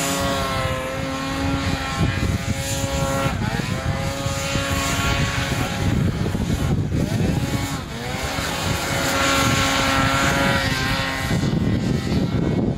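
Snowmobile engine running hard at a steady high pitch, easing off and climbing back twice as the sled is ridden through snow.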